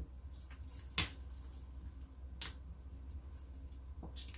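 Heat transfer vinyl being weeded by hand, scraps peeled and crumpled with soft crinkling and a few sharp crackles, the loudest about a second in.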